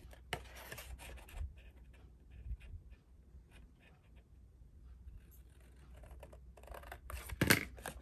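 Scissors snipping small V-shaped notches out of cardstock, with light clicks and scrapes of the paper being handled and pulled; a louder sharp click near the end.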